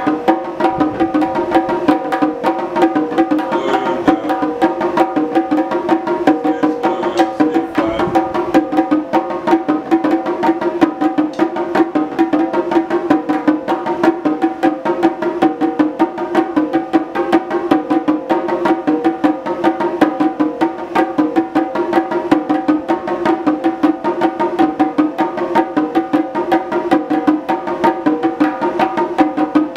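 Percussion: two players keeping up a fast, even drum rhythm, a dense run of many strokes a second, soft ghost notes among the accented hits, over a steady ringing tone.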